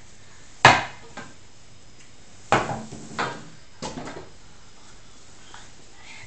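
Wooden broom knocking and clattering against a tiled floor in a few sharp knocks. The loudest comes a little under a second in, then several more from about two and a half to four seconds in.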